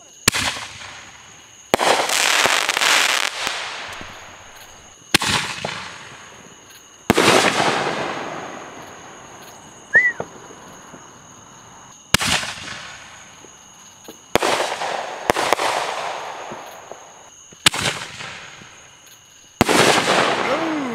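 Consumer aerial fireworks going off in a series of about ten sharp bangs, a second or two apart. Several bangs trail off in a fading rush of crackle over one to three seconds.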